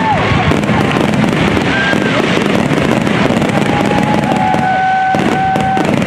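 Fireworks display: a dense, continuous run of crackling pops and bursts. A few short held whistle-like tones sound over it, mostly near the end.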